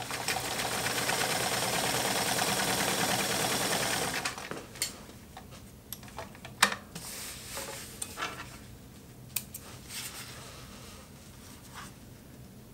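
Kenmore 1752 sewing machine running at speed for about four seconds, stitching through a three-layer double hem of 1000D Cordura nylon, then stopping abruptly. Scattered clicks and rustles follow as the sewn fabric is handled.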